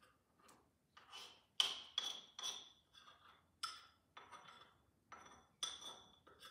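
A metal utensil scraping and tapping against the inside of a small bowl, about a dozen sharp clinks with a short ringing tone, as melted peanut butter is scraped out into a mixing bowl.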